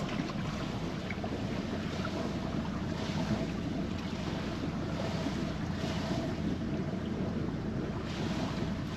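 Motor yacht's engine running steadily, a low even hum, with wind rushing on the microphone.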